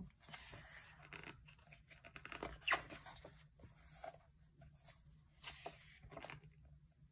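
Quiet rustling, scraping and soft clicks of paper and plastic being handled: photocards and their packaging shuffled by hand, in short irregular bursts.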